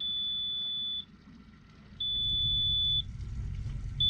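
A Yamaha outboard's warning buzzer gives three long, steady, high-pitched beeps, each about a second long with a second's gap; the third starts just before the end. This is the water-in-fuel warning from the water sensor in the fuel filter cup, sounding only in neutral. A low rumble lies underneath and grows about two seconds in.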